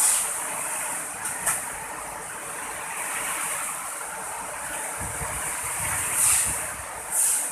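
Steady hiss of heavy rain, swelling and easing every second or so, with a low rumble of wind on the microphone about five seconds in.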